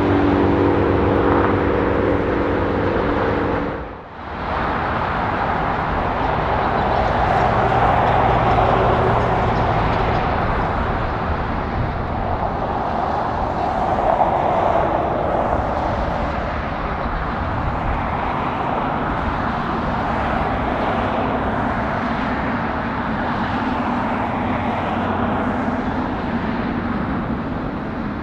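Jet aircraft noise. For the first four seconds there is a steady engine hum with several held tones. After a brief drop comes a steady jet roar from a Boeing 777-300ER's GE90 turbofans at taxi thrust.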